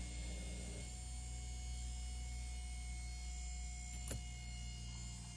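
Steady low electrical hum with a faint high whine in a car cabin with the ignition switched on and the engine not running. A single light click comes about four seconds in, and the hum fades near the end.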